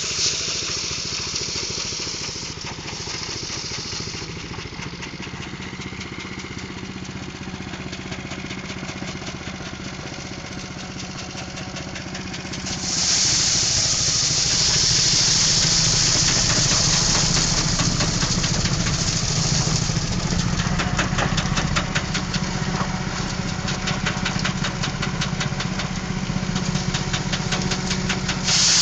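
Engine-driven rice threshing machine running: a steady engine drone with fast fine ticking under a high hissing rush, which gets clearly louder about halfway through.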